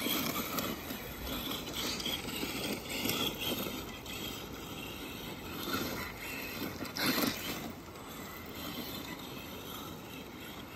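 Axial Ryft RC rock crawler's electric drivetrain whirring and grinding as it spins circles on gravelly sand, its tyres scraping the dirt. The sound swells and eases with the throttle, with a brief louder burst about two-thirds of the way through.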